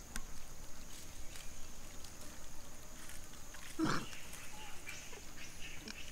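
A macaque gives one short call about four seconds in, over a steady high hiss and a few faint ticks.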